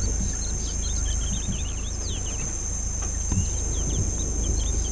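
Bush ambience: a steady high-pitched insect drone with many quick bird chirps over it, and a low rumble underneath.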